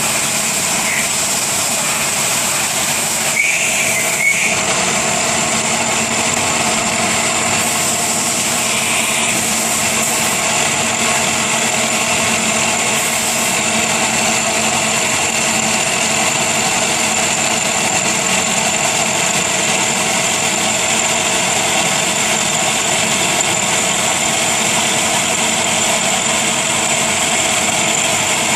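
A machine tool running steadily: a constant hum and a high whine over a hiss, with a few small clicks about three to four seconds in.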